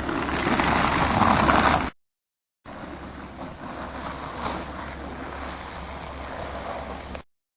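A rushing hiss of a plastic bin lid sliding over snow, with wind rumbling on the microphone. It builds and gets louder for about two seconds, stops dead, then comes back as a quieter, steadier rush that stops dead again near the end.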